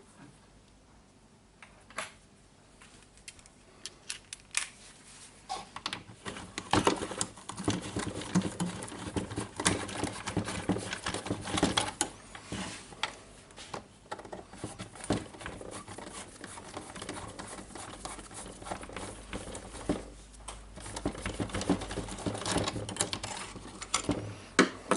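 Small clicks, taps and rattles of plastic and metal parts being handled as a cordless jigsaw is taken apart by hand. A few separate clicks at first, then busy, irregular clicking and rattling from about five seconds in.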